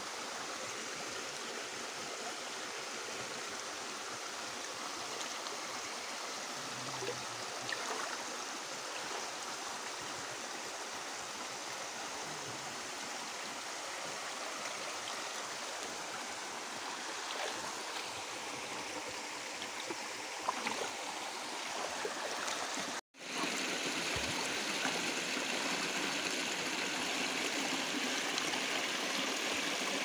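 Shallow forest stream running over rocks: a steady rush of water, cutting out for an instant a few seconds before the end and coming back slightly louder.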